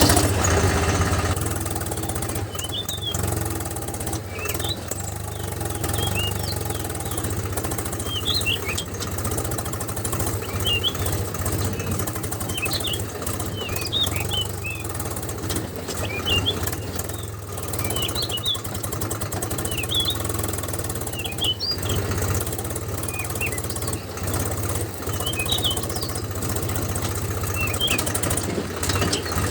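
Small motor of a model mini tractor running steadily with a low hum, while birds chirp repeatedly.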